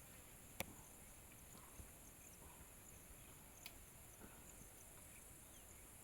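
Near silence with a faint, steady high-pitched insect drone and a few soft clicks.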